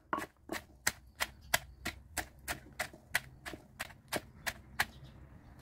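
Wooden pestle pounding in an earthenware mortar, about three strokes a second, stopping near the end: pounding a shredded herb-and-chili paste.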